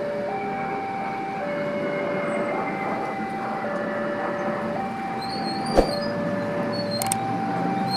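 Railway level-crossing warning alarm sounding a two-tone signal, switching between a higher and a lower tone about once a second, which warns that a train is approaching. A single sharp knock cuts in about six seconds in.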